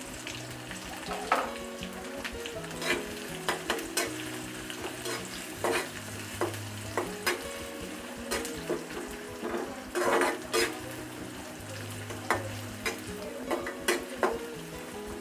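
Chopped onion and garlic sizzling in hot oil with dried red chillies and whole spices in an aluminium karahi, frying for a dal's tempering. A flat spatula stirs through them, scraping and knocking against the pan at irregular moments, several times close together around the middle.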